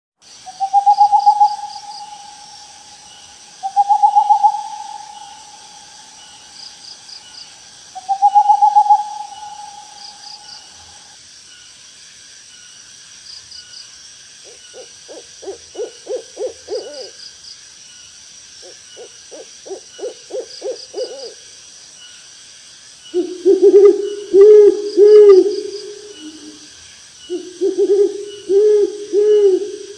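Owl calls: three drawn-out hoots that rise and then hold, then two fast trills of rapid notes, and near the end two louder runs of several hoots each. A steady high insect chirring with short pulsed chirps every couple of seconds runs behind.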